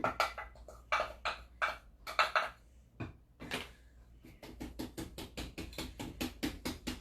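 Thick banana bread batter being stirred in a mixing bowl as flour is worked in. It is a run of short scraping strokes, irregular at first, then quick and even at about four a second.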